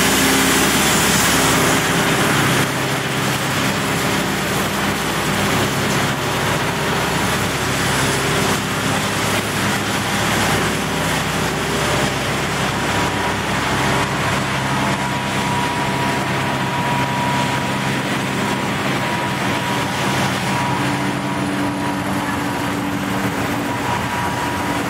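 Engines of pumps and pump trucks running steadily, several drones layered into one loud din. A steady high whine comes in about halfway through.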